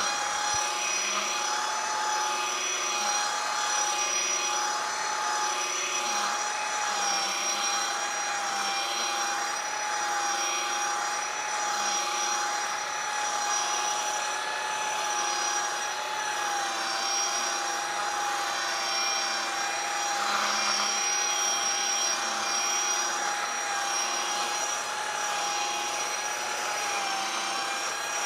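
Electric sander running steadily on a black walnut mantel slab: a steady motor whine over the hiss of the pad on the wood, its pitch dipping slightly a couple of times.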